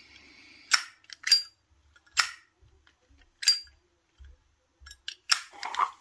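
Zippo lighter's hinged metal lid being flipped open and snapped shut: a handful of sharp metallic clicks a second or so apart, some followed by a short high ring.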